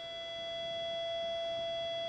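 A steady electronic alert tone, one pitch with overtones, held without change and cut off abruptly: the radio alert tone that opens a fire dispatch announcement.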